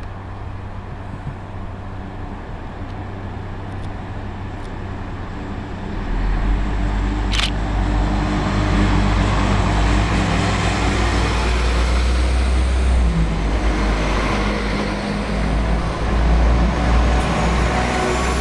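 West Midlands Railway Class 172 Turbostar diesel multiple unit approaching and running past close by. Its diesel engines give a steady low drone that gets louder about six seconds in, joined by a growing hiss of wheels on the rails. There is one brief sharp click about seven seconds in.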